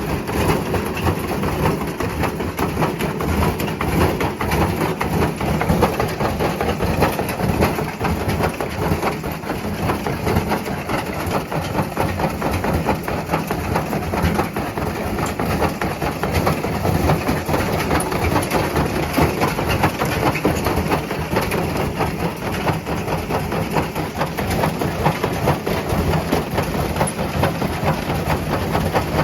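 Servis washing machine drum turning with two bricks (about 18 kg) tumbling inside: continuous heavy rumbling with rapid knocking and crashing as the loaded drum shakes around in its casing.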